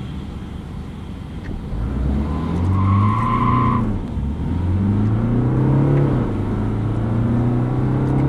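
BMW 420d G22's four-cylinder diesel engine accelerating hard, the engine note rising through the revs, dropping at an upshift about four seconds in and again about six seconds in, then climbing once more. A brief steady high tone sounds around three seconds in.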